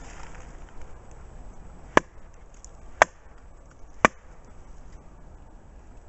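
A tree trunk struck hard three times, about a second apart: sharp wood knocks of the kind used to call for a reply.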